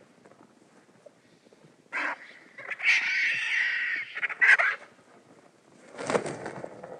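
Animal calls: a short call about two seconds in, a longer one lasting about a second, another short call near four and a half seconds, and a lower, fuller call about six seconds in.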